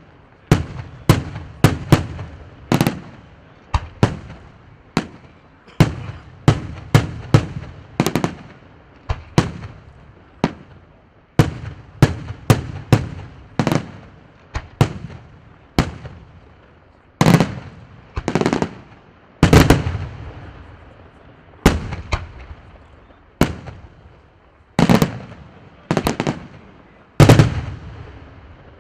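Aerial fireworks display: shells bursting in a rapid series of loud bangs, about one to two a second, each trailing off in an echo. The heaviest booms, with longer rumbling tails, come in the second half.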